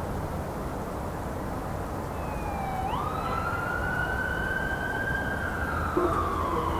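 An emergency-vehicle siren wailing over a steady city rumble: its pitch dips, jumps up sharply about three seconds in, holds, then slowly falls away. A low steady tone joins near the end.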